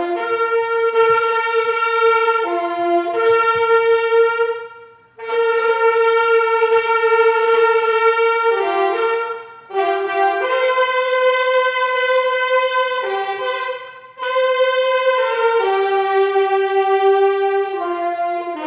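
A solo wind instrument with a brass-like tone plays a slow hymn melody in long held notes. The phrases break off briefly about three times.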